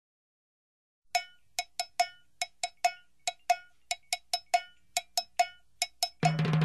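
Intro music: after a second of silence, a syncopated run of short, sharp percussion hits, all on one pitch. About six seconds in, a full band with drum kit and bass comes in.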